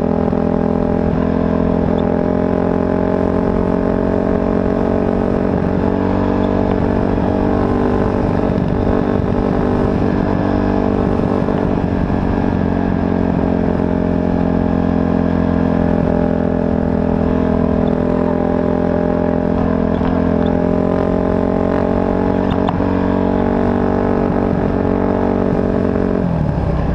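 Off-road race vehicle's engine running at one steady, unchanging pitch, held at a constant speed as in a speed-restricted zone; the pitch drops right at the end.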